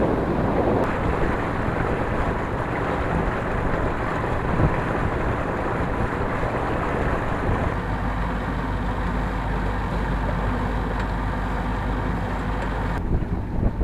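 Wind buffeting the microphone over a steady low rumble. The hiss drops away abruptly near the end.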